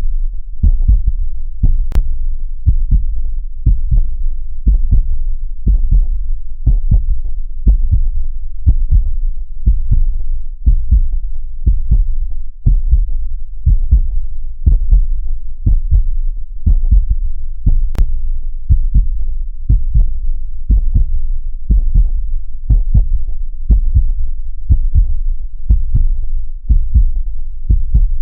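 Womb-like heartbeat sound, a steady, muffled lub-dub rhythm of low thuds repeating in pairs at about a beat a second.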